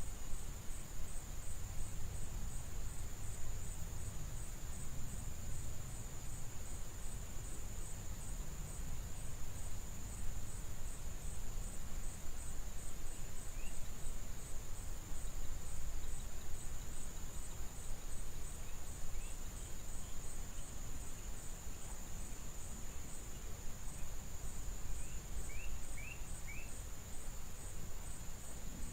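Insects chirring steadily at a high pitch with a regular pulse of about two beats a second, over a low rumble. A few short bird chirps come in during the second half.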